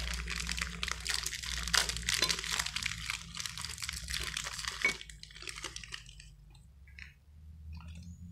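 Plastic Oreo cookie wrapper crinkling and rustling as hands work it open and pull the cookies out. The crinkling stops about five seconds in, leaving a few faint handling sounds.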